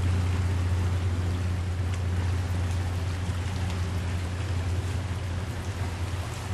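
Boat engine running at a steady low hum over a continuous wash of water and wind noise, slowly fading near the end.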